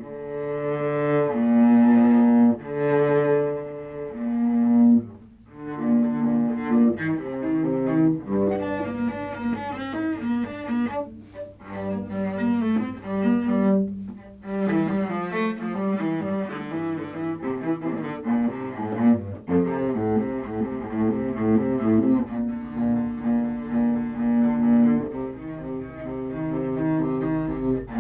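Solo cello played with the bow: a few long held notes at first, then quick runs of short notes from about eight seconds in, with some longer notes returning near the end.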